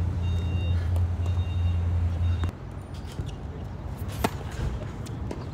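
A vehicle engine running with a low steady hum and repeated short high beeps, which cut off abruptly about halfway through. About four seconds in, a racket strikes a tennis ball on a serve with a single sharp pop.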